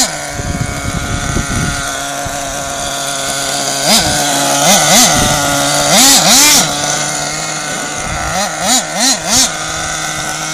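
Nitro RC monster truck's small two-stroke glow-fuel engine running at a steady idle buzz, blipped in short revs that rise and fall: once at the start, a few between about four and six and a half seconds in, and four quick blips near the end.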